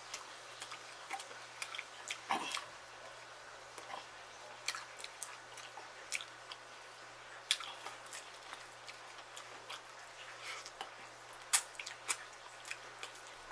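Close-up eating sounds: a person chewing food, with scattered soft clicks and wet mouth smacks.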